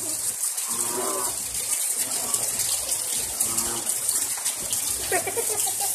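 Steady rain falling, a continuous dense hiss.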